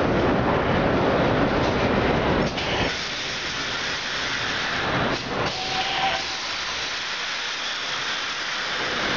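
Vintage R1/R9-series 'Arnine' subway cars rolling into the station with a heavy rumble. The rumble drops away about two and a half seconds in as the train slows to a stop, leaving a steady high hiss of air. A short squeal sounds about six seconds in.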